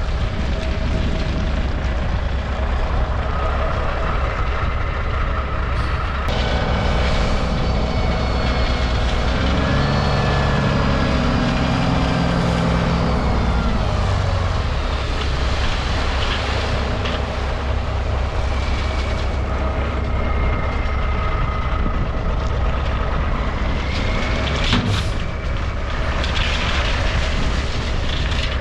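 A steady low diesel engine rumble close by, while a dump truck's engine revs up for a few seconds as its bed is raised, and a load of gravel then slides out of the bed.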